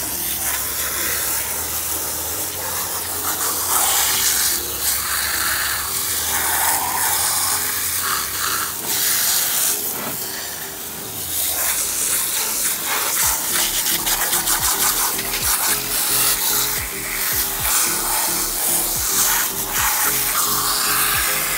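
Garden hose spray nozzle jetting water onto sneakers and a plastic surface, a steady hissing spray with splashing, over background music with a repeating beat.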